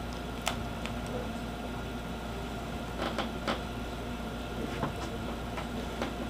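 Scattered light clicks and taps of hands and a screwdriver handling a netbook's plastic screen assembly, with a small cluster about three seconds in. A steady low hum runs underneath.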